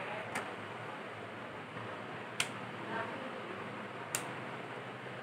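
Three sharp clicks about two seconds apart, the plates of a Remington hair straightener (flat iron) clacking shut and open on the hair, over a steady hiss.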